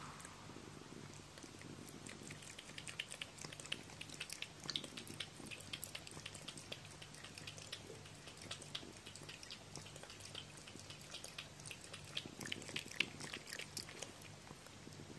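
Domestic cat lapping water from a plastic basin: faint, quick wet clicks, several a second, starting about two seconds in and stopping near the end.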